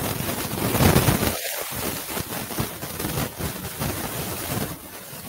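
Loud, steady rushing noise, like wind buffeting a microphone, with a short dip about one and a half seconds in.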